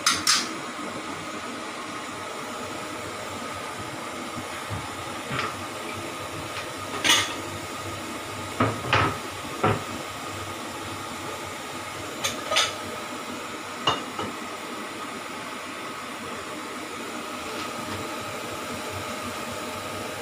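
Metal ladle clanking and scraping against a steel wok of frying diced cucumber: about nine short separate clanks spread over the first fourteen seconds, over a steady low hiss.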